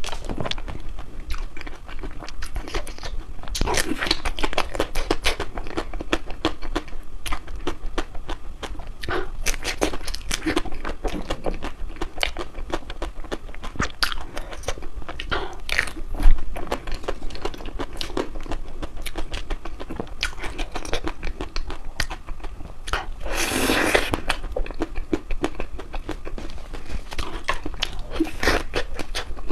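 Close-up chewing and biting of a crispy, dry chocolate ice cream: many irregular crunches and crackles, with one sharp loud crack about halfway through.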